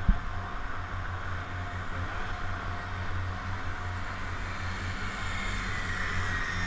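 Twin outboard motors running at speed, a steady low drone under the rush of water and wind. A short thump comes just after the start.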